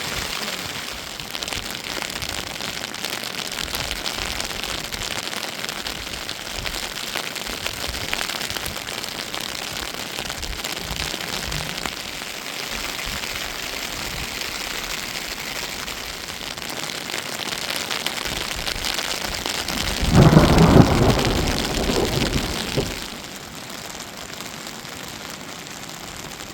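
Steady rain falling on a surface, a dense hiss of fine drop ticks. About twenty seconds in, a loud low rumble rises for about three seconds, then dies away.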